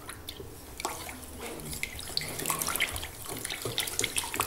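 Wooden spoon stirring milk and egg yolks in a large plastic bowl, the liquid sloshing and splashing in quick irregular strokes that get busier about two seconds in.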